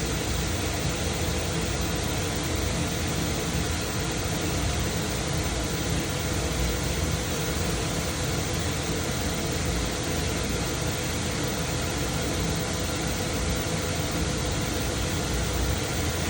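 Biesse Rover K CNC router running steadily, a constant whir and hiss with a faint steady hum underneath.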